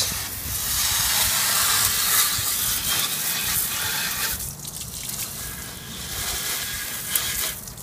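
Garden hose spraying water onto a hard plastic RC truck body, rinsing off paint loosened by oven cleaner: a steady hiss of spray. The hiss drops for a moment about halfway through, then goes on more softly.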